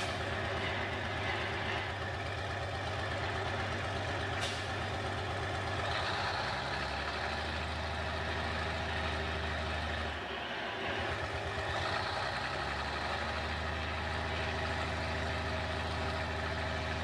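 Diesel engine of a Lima Model 65-T cable dragline working hard as it drags a log out of a pond, its note rising and holding about six seconds in, easing briefly near ten seconds, then pulling again. A single sharp sound about four and a half seconds in.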